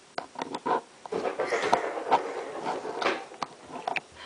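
Plastic seat buckle clicking and rattling as a toddler works at fastening it: many sharp clicks throughout, with a busier stretch of handling noise in the middle.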